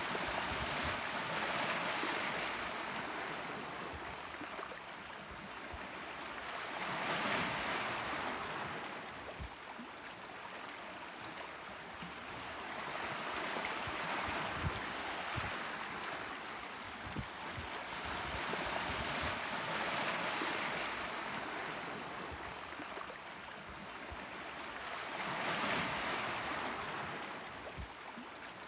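Gentle Mediterranean waves washing onto the shore, the surf swelling and fading in a slow rhythm about every six seconds.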